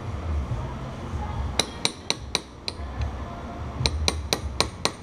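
Ball-peen hammer striking a steel punch in sharp metallic taps: about five taps starting around a second and a half in, then a quicker run of six near the end. The punch is knocking the tab of the lock washer flat over the front sprocket nut of a Kawasaki KLX250S, locking the nut to the shaft.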